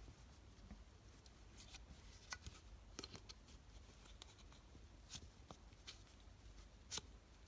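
Near silence, with faint scattered clicks and light scratching as the plastic Roomba dust bin is handled and its sensors are wiped clean.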